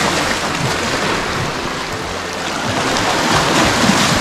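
Small sea waves lapping and washing over rocks at the edge of a sandy beach, with a wave surging up louder about three seconds in.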